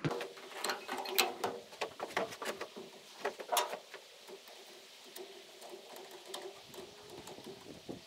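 Rubber fuel hose being handled and fitted at a fuel filter and pump fitting: scattered clicks, taps and rubbing, busiest in the first few seconds and sparser after.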